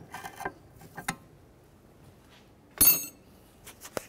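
Small pry bar working at a steel parking brake cable retaining clip: light scrapes and clicks, with one sharp, ringing metallic clink about three seconds in.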